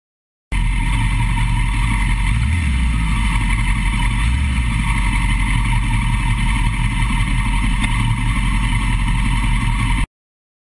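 Steady, loud machine running noise that starts abruptly about half a second in and cuts off suddenly near the end.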